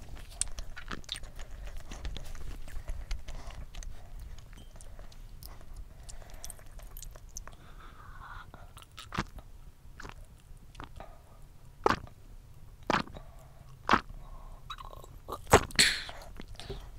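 Close-miked mouth sounds of someone chewing, then drinking down a glass of Bundaberg mango soda in one go, with a few loud gulps about a second apart toward the end.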